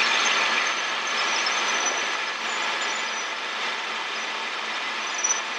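Steady in-flight cabin noise of a Robinson R22 Beta II helicopter in cruise, heard through the headset intercom as an even hiss with no low rumble.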